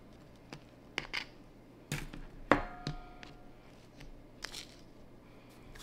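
Scattered small clicks and rustles of a potted plant and pot being handled, with one sharper clink about two and a half seconds in that rings briefly.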